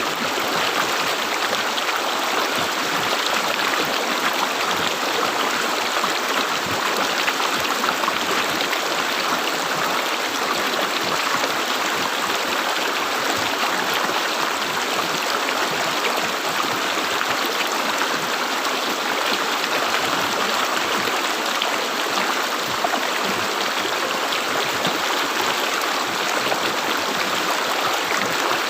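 River water gurgling and rushing steadily over the streambed.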